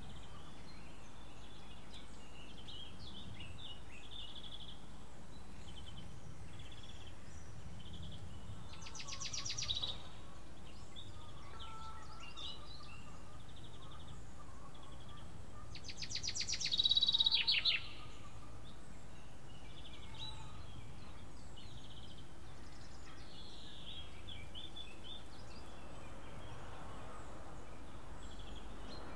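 Small birds chirping and calling over a steady low background hum, with two louder, rapid trilling calls, one about nine seconds in and a longer one about sixteen seconds in.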